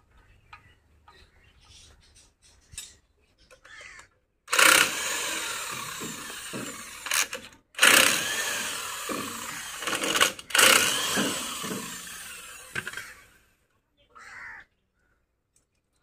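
A power tool working on metal in three loud bursts. Each starts suddenly and fades over two to three seconds, with sharp knocks in between.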